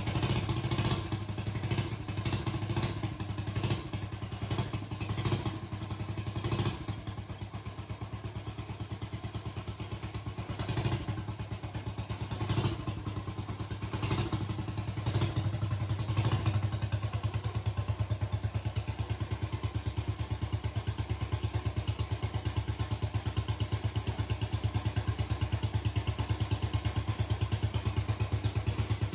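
Small 200 cc Bernard single-cylinder diesel engine running with a fast, even pulse, with a series of louder clattery bursts over the first half before it settles into a steady run.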